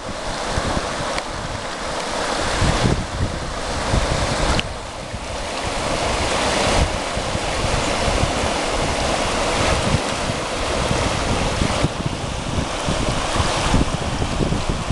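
Rushing, churning water of a small river riffle, a steady hiss of whitewater, with wind gusting on the microphone.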